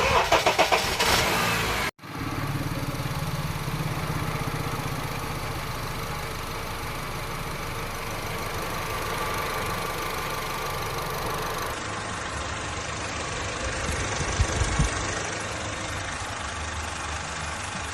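Honda Civic FD's four-cylinder petrol engine running, louder and pulsing for the first couple of seconds and then idling steadily, after its too-wide valve clearances were adjusted to cure a ticking engine knock.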